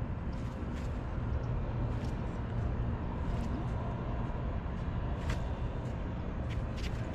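Steady low outdoor rumble, with a few short, sharp clicks scattered through it.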